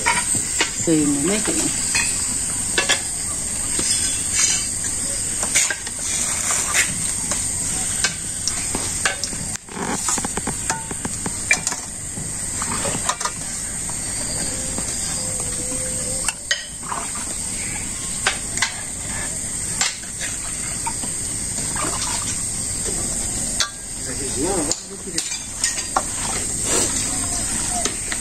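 Stainless steel bowls and utensils clinking and knocking again and again as food is handled and mixed by hand, over a steady hiss.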